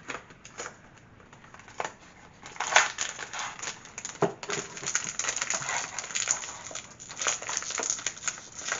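Pocky snack packaging crinkling and crackling as it is opened by hand: a few scattered clicks, then dense, busy crackling from about two and a half seconds in.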